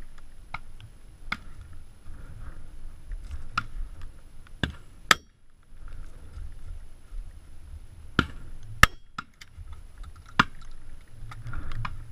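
Double-barrelled shotgun firing at driven grouse: two quick pairs of shots about half a second apart, around five and nine seconds in, the second shot of each pair the louder, with fainter sharp cracks between them. Wind rumbles on the microphone throughout.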